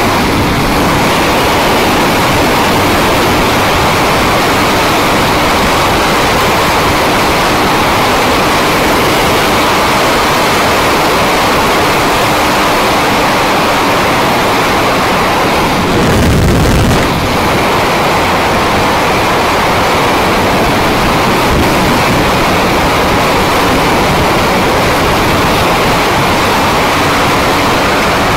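Steady wind rushing over the camera microphone of a motorcycle at road speed, with the Honda CBR250R's engine running faintly underneath. A brief heavier low gust about sixteen seconds in.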